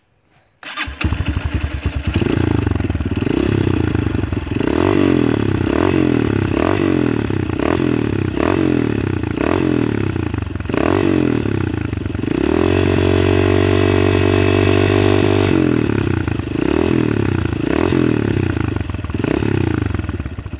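Honda CRF230's single-cylinder four-stroke engine starting about a second in, on its first run after a Seafoam shock-treatment soak. It is then revved in throttle blips about once a second, held at higher revs for about three seconds in the middle, and blipped again.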